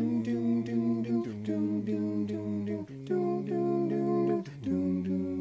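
Several overdubbed layers of one man's voice humming sustained chords in close harmony, moving to a new chord about every second and a half. Light clicks keep a steady beat underneath.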